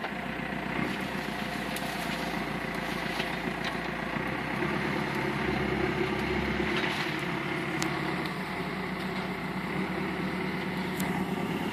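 Backhoe engine running steadily, with a few light clicks on top.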